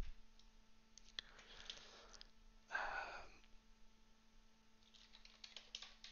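Quiet typing on a computer keyboard: a few scattered keystrokes, then a denser run of key clicks near the end. A brief breathy hiss about three seconds in is the loudest sound, over a faint steady hum.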